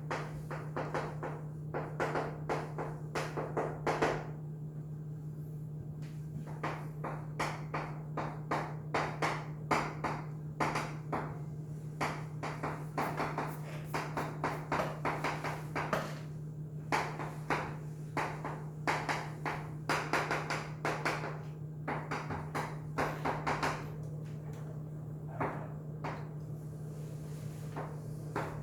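Irregular light taps and clicks, several a second in clusters with short pauses, over a steady low hum.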